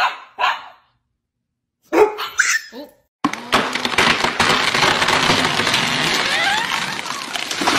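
A few short dog barks in the first seconds, then a loud, dense, steady noise with faint rising tones for the rest.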